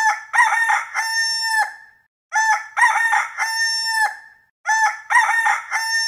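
A rooster crowing three times, the same cock-a-doodle-doo repeated about every two seconds, each crow ending on a long held note.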